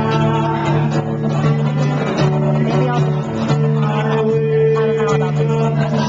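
A man singing, accompanied by a strummed acoustic guitar in a live performance.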